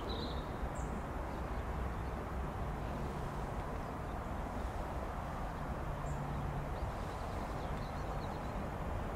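Outdoor background ambience between trains: a steady low rumble with a few faint, brief bird chirps.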